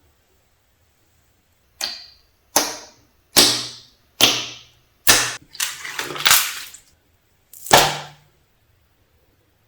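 Slime being squeezed and stretched by hand, making a series of sharp, wet pops and snaps, about eight of them, starting about two seconds in.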